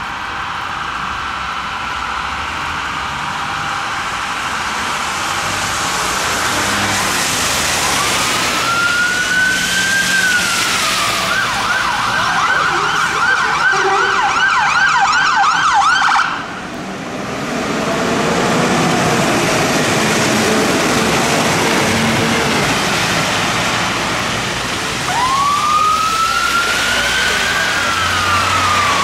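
Siren of a Scania P280 fire engine (heavy rescue pump) on an emergency run. It sounds steadily at first, then a rising-and-falling wail switches to a fast yelp, which cuts off abruptly about halfway through. Engine and tyre-spray hiss on the wet road follow, and the wail starts again near the end.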